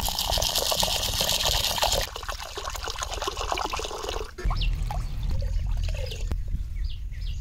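Water being poured to soak dry chana dal in a clay pot: a steady splashing stream for about two seconds, then thinner pours and trickling.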